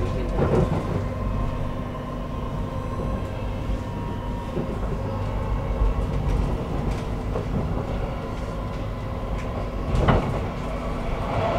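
Stockholm metro (tunnelbana) train running at speed, heard from inside the carriage: a steady rumble of wheels on rail with a faint steady hum, and two sharp knocks, one near the start and a louder one about ten seconds in.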